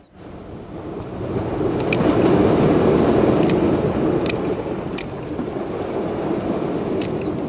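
Sharp snips of a hand cutter clipping the venomous dorsal spines off a spotted scat, about seven clicks, some in quick pairs. They sit over a loud rushing noise that swells up in the first two seconds and then holds steady.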